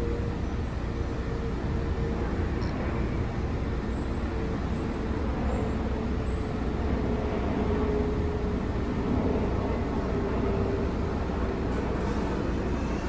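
R143 subway train standing at an elevated platform, giving a steady hum with a faint whine over a low rumble.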